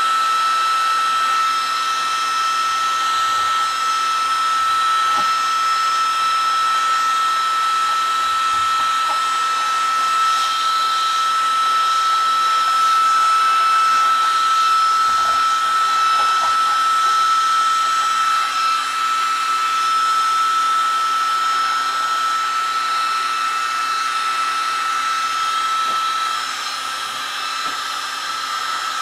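Wagner heat gun running steadily: a constant high whine from its fan over a continuous rush of hot air, which softens the paint for scraping.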